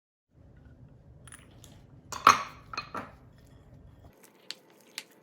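Utensils clinking and knocking against dishware: two loud clinks about two and three seconds in, then a few lighter ticks near the end.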